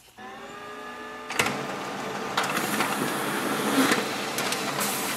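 Xerox B230 monochrome laser printer printing a page: a motor spins up with a slightly rising whine, then about a second and a half in a click starts the steady whirring run of the page feeding through, with a few more clicks along the way.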